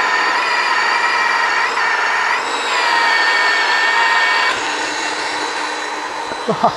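Cordless 18V magnetic drill (Milwaukee M18 FUEL mag drill) boring through a 1.2 cm steel plate, its motor and cutter giving a loud steady whine that shifts slightly in pitch. The whine drops away about four and a half seconds in, followed by a few short sharp squeaks near the end.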